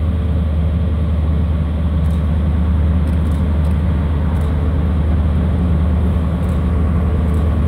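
HST Class 43 diesel power car running under power as the train pulls away, a steady low drone.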